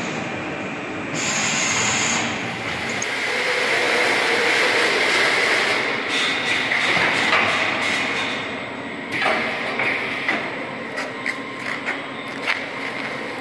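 Automatic packing machine for toilet-paper rolls running: a steady mechanical hiss and whir. Sharp clicks and knocks come in the last few seconds.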